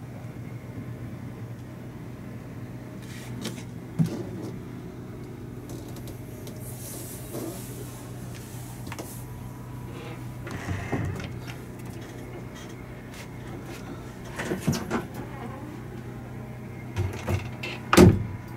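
Wooden cabinet and closet doors being handled and opened, giving a few knocks and clacks, the loudest near the end. A steady low hum runs underneath.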